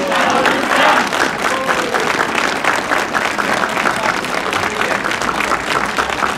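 Crowd applauding after a carol ends, dense clapping with a few voices calling out in the first couple of seconds.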